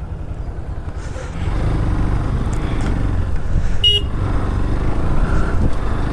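Motorcycle on the move: engine rumble with wind noise on the microphone, getting louder about a second and a half in. A short horn toot comes around four seconds in.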